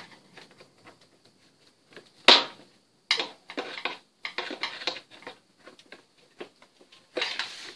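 A screwdriver scraping and levering at the spring clips of an Opel Vectra B's plastic air filter housing lid, with a sharp click about two seconds in, the loudest sound, and a second one a moment later, then smaller clicks and scrapes.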